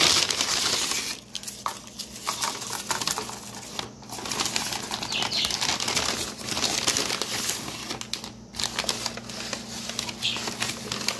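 Paper takeout bag rustling and crinkling as a hand rummages inside it, in irregular handfuls with short pauses.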